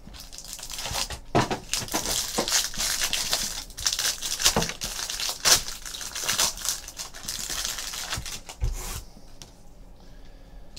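Foil wrapper of a trading card pack being torn open and crinkled by hand, dense crackling with sharp snaps; it stops about nine seconds in.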